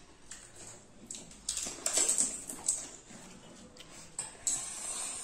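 A young child slurping pani puri water from a plastic plate held to her mouth, in several wet slurps.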